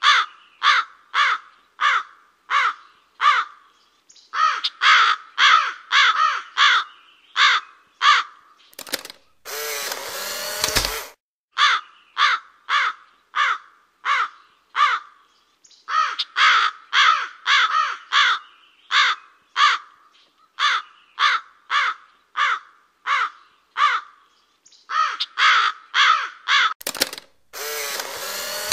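A bird calling in long runs of short, harsh, evenly spaced notes, about two a second, with brief pauses between runs. A few short gusts of rushing noise break in, the longest near the end.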